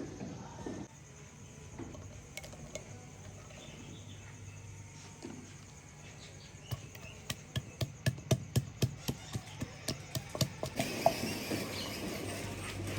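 A quick run of sharp knocks, about four a second, starting about seven seconds in and stopping about eleven seconds in.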